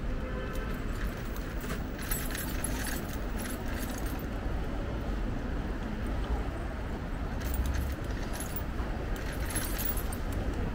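Wind rumbling on the microphone with road noise from a moving electric bike, broken by a few short bursts of high hiss or rattle.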